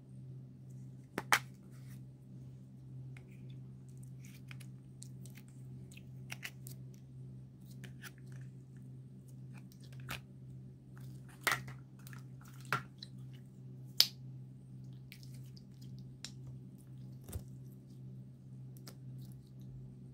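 Slime being worked by hand, giving scattered sticky clicks and sharp pops, the loudest about a second in and three more between about eleven and fourteen seconds in, over a steady low hum.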